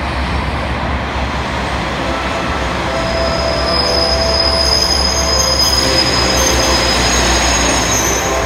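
KiHa 120 diesel railcars running into a platform, with engine and wheel noise throughout. A high-pitched, steady brake squeal sets in about three to four seconds in as the train slows past.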